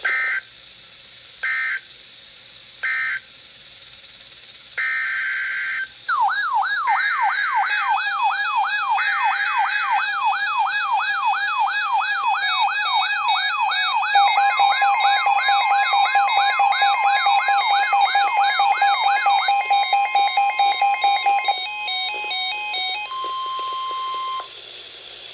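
Emergency Alert System data and alarm tones from a NOAA Weather Radio broadcast: three short screeching data bursts, then longer data bursts. About six seconds in, a fast warbling alarm joins them, followed by a steady attention tone and layered beeping alarm tones that stop shortly before the end.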